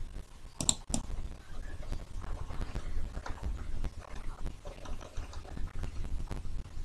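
Two sharp computer-mouse clicks a little under a second in. After them comes a low, steady rumble with faint scattered soft taps as the mouse is worked.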